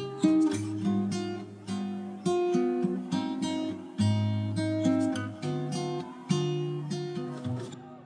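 Background music: acoustic guitar, plucked and strummed notes that each ring and die away, stopping near the end.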